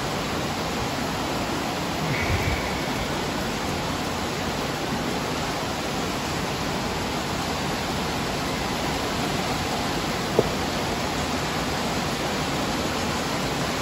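Heavy rain falling steadily, a loud even hiss. A single sharp click about ten seconds in.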